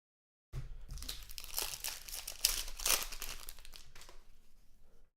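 Foil wrapper of a trading card pack crinkling and tearing as the pack is opened. It starts about half a second in, is busiest in the middle and fades out near the end.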